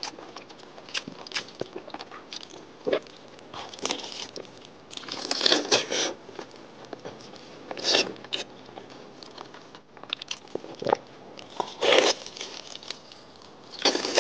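Close-miked eating sounds of someone biting and chewing braised pork mesentery fat. Wet, sticky bites and sucking come in irregular bursts every second or two, with quieter chewing between them.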